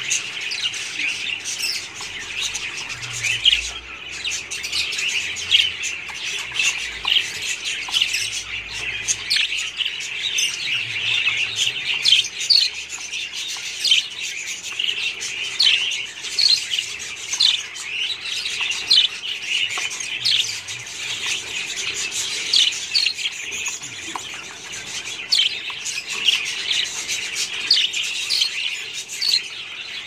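Budgerigars chirping and squawking without pause, a dense stream of short, high, scratchy calls overlapping several times a second.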